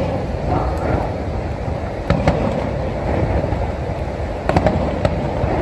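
Steady low roar of Niagara Falls' falling water, with a few sharp firework cracks about two seconds in and again near the end.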